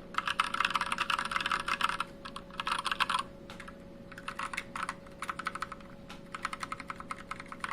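Tactile mechanical keyboard switches, Zelios 67 g and Kailh Pro Purple, pressed rapidly: several bursts of quick clicking keystrokes with short pauses between them.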